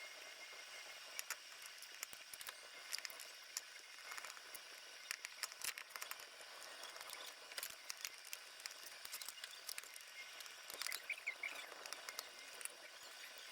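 Faint, irregular light clicks and taps over a steady hiss, from hands handling a plastic LEGO DUPLO steam train toy.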